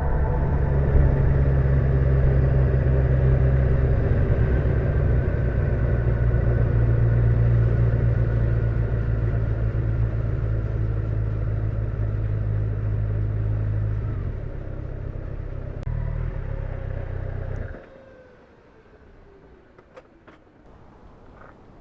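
Motorcycle engine running steadily at a constant speed, then cutting off abruptly near the end, leaving faint background sound with a few light clicks.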